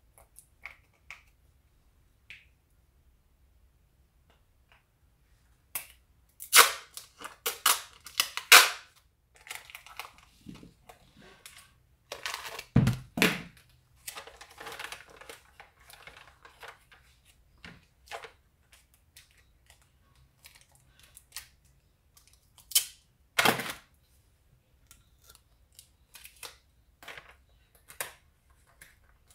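Gift-wrapping paper and a plastic-packaged hairbrush being handled: irregular crinkles, rustles and sharp snaps, loudest in a cluster about six to nine seconds in, with a couple of heavier knocks near thirteen and twenty-three seconds.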